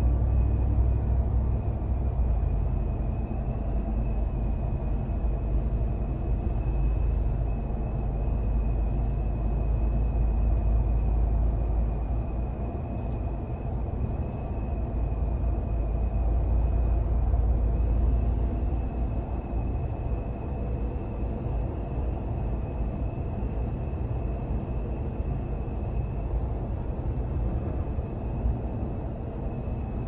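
Wind and road noise inside the cab of a 2021 Ram 1500 TRX at speed, with a steady high-pitched whistle over it. This is the common Ram cab wind whistle, which keeps going with the A-pillar, windshield and mirror seams taped over.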